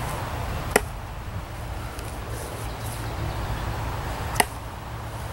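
Two sharp chops of a Camillus Titanium stainless knife blade striking into wood, about three and a half seconds apart, as a test of the blade's hardness.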